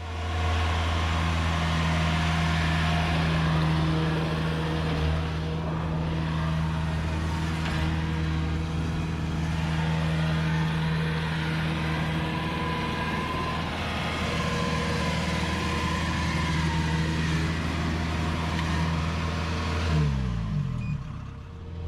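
Engine running steadily, then slowing about twenty seconds in, its pitch dropping.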